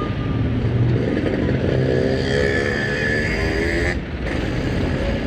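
A road vehicle's engine running, with a wavering pitched sound over it for a couple of seconds in the middle.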